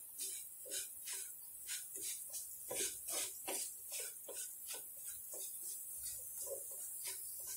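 Silicone spatula stirring and scraping a crumbly rava, coconut and jaggery mixture around a nonstick pan, in irregular soft scrapes about twice a second.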